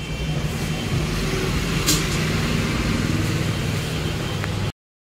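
A motor vehicle's engine running steadily amid road noise, cutting off abruptly near the end.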